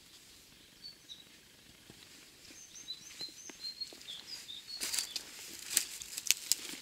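A small songbird calling in short, high chirps for the first few seconds. From about five seconds in, sharp crackling and snapping of dry twigs and brush underfoot on the riverbank.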